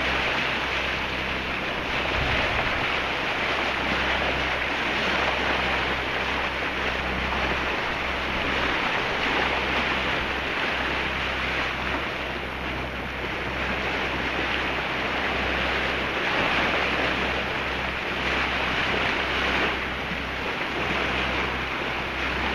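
Water rushing and splashing along the bow of a Tayana 55 sailboat under way, with wind on the microphone and a steady low hum underneath.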